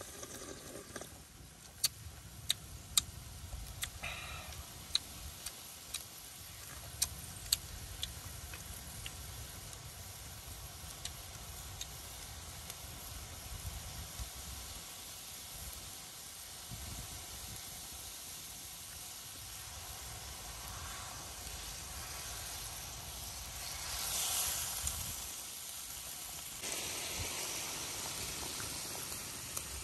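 A wok of chili soup simmering, with a run of sharp clicks in the first several seconds. About 24 seconds in comes a hissing splash as a whole fish goes into the soup, then a steady, louder bubbling hiss heard close to the wok.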